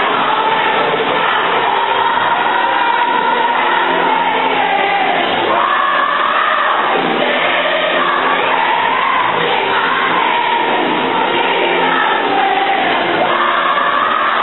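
Loud music with a packed crowd singing and shouting along, without a break.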